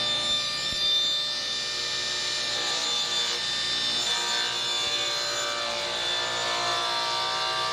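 Ridgid table saw ripping an MDF blank lengthwise: the steady whine of the spinning blade with the hiss of the cut.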